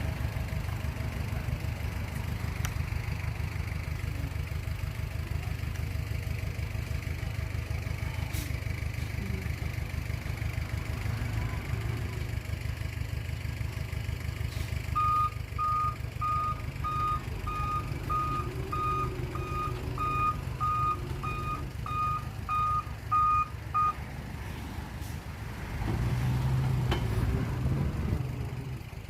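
Heavy diesel earthmoving machinery running steadily, with a vehicle's reversing alarm beeping at about two beeps a second for some nine seconds from about halfway in; the engine grows louder near the end.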